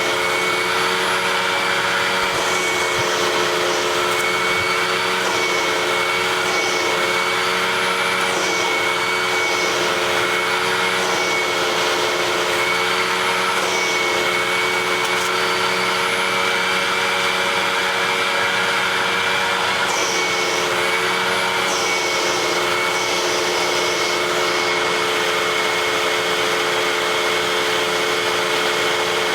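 Vacuum cleaner running steadily, its motor giving a constant drone with a steady whine. Brief higher hissing flickers come and go now and then as it picks up debris.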